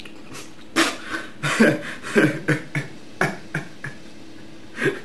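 A man retching and gagging into a bowl after forcing down a stomach full of Oreos. A quick run of short, harsh heaves starts about a second in, and after a pause comes one more heave near the end.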